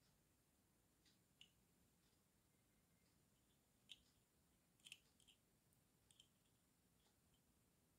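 Near silence with about half a dozen faint, sharp clicks, the strongest about four and five seconds in, as the steel mounting bracket and plastic switch block of an electric kettle's control unit are handled in the fingers.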